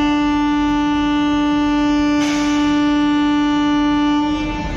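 WAP-7 electric locomotive's horn sounding one long steady blast, dropping slightly in pitch as it cuts off near the end, the train's departure signal. A brief hiss about two seconds in.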